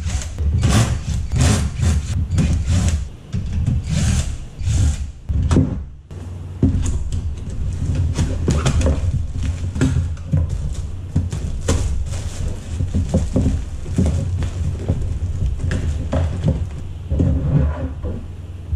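Handling noises of PC parts and their cardboard packaging: a run of knocks, clunks and rustles over a constant low hum as a power supply is taken out of its box.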